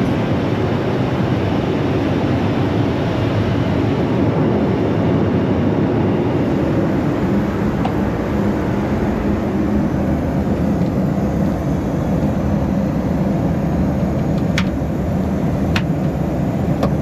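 Steady cabin noise of an airliner in flight, a low, even rush of engines and airflow. Two short clicks come near the end.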